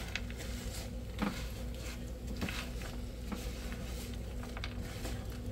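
Sesame seeds, chile seeds and nuts toasting in a frying pan: faint scattered crackling with a few soft clicks, over a steady low hum.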